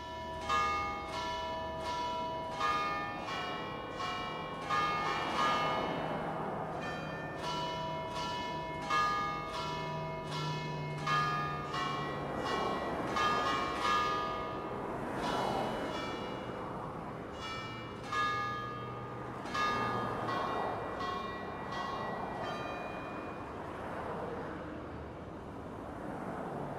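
Church bells pealing: several bells struck in quick irregular succession, their tones ringing on and overlapping. The strikes thin out and die away over the last few seconds.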